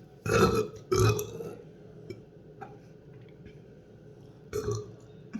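A person burping: two loud burps in quick succession in the first second and a half, then a shorter, quieter burp near the end.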